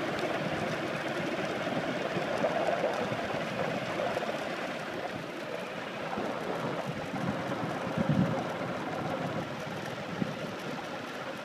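Racing wheelchair rolling fast downhill on wet asphalt: a steady rush of tyre hiss and wind noise, with a short low bump about eight seconds in.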